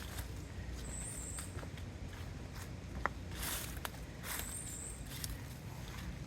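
Footsteps and handling noise over a steady low rumble, with a sharp click about halfway through. A brief high-pitched buzz comes back about every three seconds.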